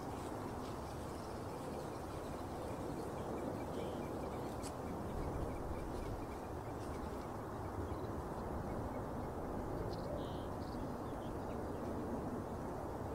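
Steady outdoor background noise with a few faint, brief small-bird chirps, about four seconds in and again near ten seconds, and a faint rapid ticking trill in the first half.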